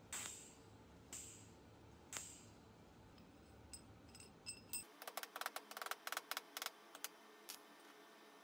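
Small metal parts of a TIG welding torch (tungsten electrode, collet, ceramic cup) being handled and fitted. First come three light taps about a second apart, each with a short ring, then a faint tinkling. About five seconds in there is a quick run of small clicks. A faint low hum stops suddenly at about the same point.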